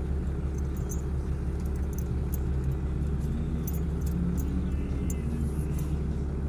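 Diesel truck engine running steadily, a constant low rumble heard from inside the cab.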